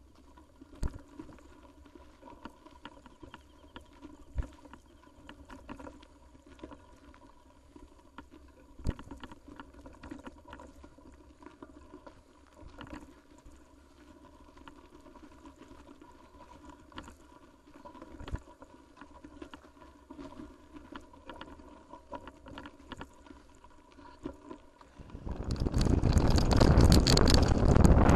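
A mountain bike on a rough trail, heard from a camera mounted on the bike or rider: quiet riding with a few sharp knocks and rattles. Near the end a loud, steady rush of wind on the microphone sets in as the bike picks up speed.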